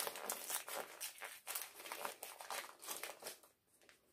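Plastic packaging crinkling as a wrapped parts bag is handled, in a run of quick crackles that stops about three and a half seconds in.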